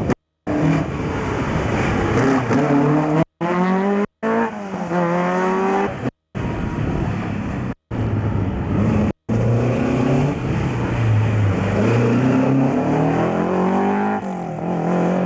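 Rally car engines revving hard, the pitch climbing through each gear and dropping at the changes, over and over as the cars accelerate between the tyre barriers. The sound cuts out abruptly to silence several times for a moment.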